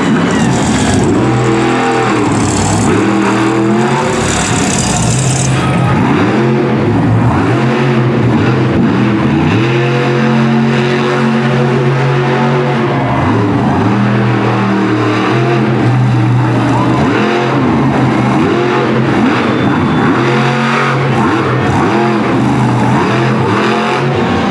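Monster truck's big-block engine revving hard, its pitch climbing and falling again and again as the throttle is worked, with steadier stretches at high revs in between.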